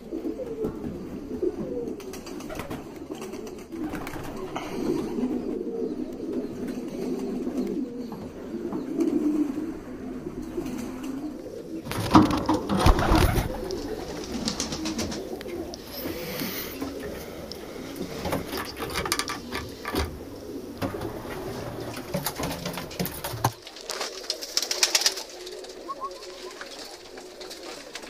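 Domestic pigeons cooing, low repeated coos from several birds overlapping, with a louder burst of noise about twelve seconds in.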